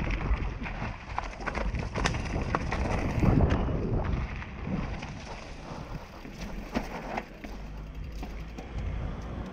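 Mountain bike riding fast over leaf-covered dirt and then onto concrete and asphalt: tyres rolling with a low rumble and many sharp clicks and rattles from the bike. The loudest jolt comes about three seconds in, and the sound grows quieter and smoother from about halfway as the bike rolls on pavement.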